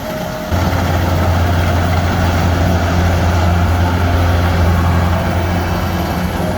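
Heavy engine of a rice combine harvester running steadily: a deep, even drone that comes in suddenly about half a second in.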